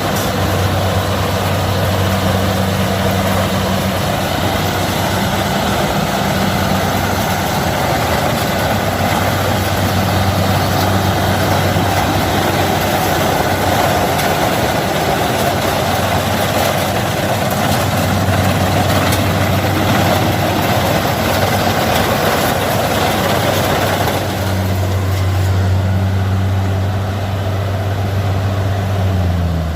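Heavy diesel engine of rice-harvesting machinery running steadily, with a dense mechanical clatter over the engine note. Near the end the clatter eases and the engine note drops.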